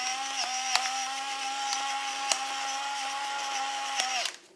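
Electric pepper mill grinding peppercorns into a pot: a steady motor whir with a few sharp cracks, cutting off about four seconds in.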